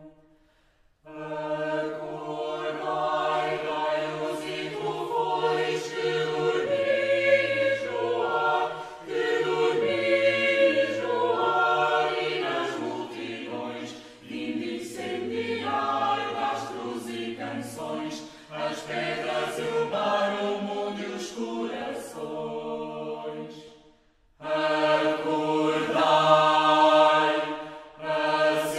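Choral music: a choir singing slow, long-held chords, breaking off briefly at the start and again near the end.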